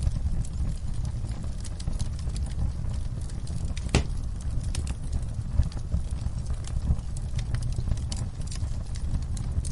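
Wood fire burning in a fireplace, crackling with irregular sharp pops over a low steady rumble of the flames, one louder pop about four seconds in.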